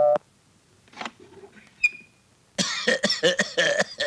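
A doorbell chime cuts off just after the start, a door bolt clicks about two seconds in, then an old man coughs in a quick, loud run of coughs as the door opens.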